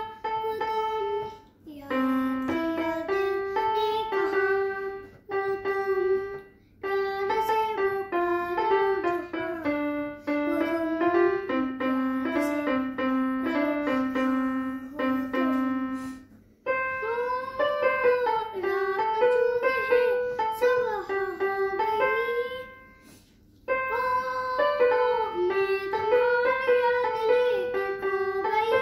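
A small electronic keyboard plays a simple melody note by note in a piano voice, in short phrases with brief pauses between them. In the second half a child's voice sings along with the tune.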